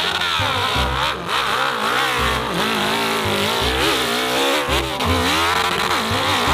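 Dirt bike engine revving hard under full load while it climbs a steep hill, its pitch rising and falling again and again as the throttle is worked.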